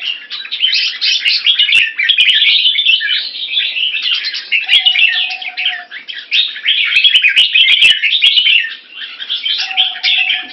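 Caged red-whiskered bulbuls chattering and singing in a dense, continuous stream of quick high chirps. A steady, lower whistled note about a second long sounds twice, about halfway through and near the end.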